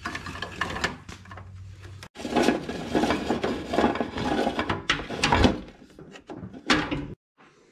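Handling noise of work on the tractor: irregular rubbing, rustling and light knocks against plastic and metal, cutting off suddenly about seven seconds in.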